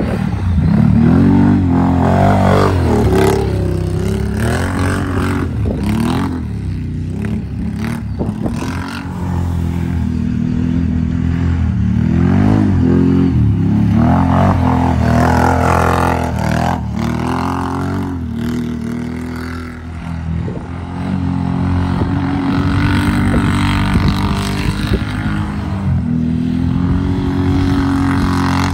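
2021 Can-Am Renegade XMR 1000 ATV's Rotax V-twin engine revving up and down again and again, its pitch rising and falling with each throttle burst as the plow-equipped quad spins and drifts on packed snow and ice. The engine eases off briefly about twenty seconds in, then picks up again.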